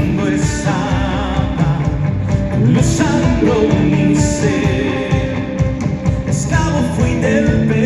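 Live band playing a rock-style worship song in rehearsal, with continuous full-band music.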